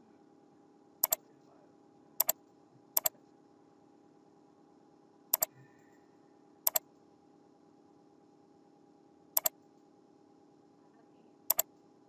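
Seven computer mouse clicks at irregular intervals, each a sharp press-and-release double click, over a faint steady hum.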